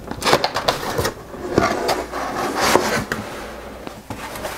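A cardboard box being opened by hand: its lid slides and scrapes off the base, with rubbing and sharp little knocks, then quieter handling near the end.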